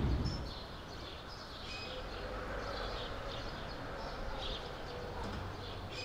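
A swoosh transition effect fades out in the first half-second. It leaves outdoor ambience: small birds chirping now and then over steady low background noise.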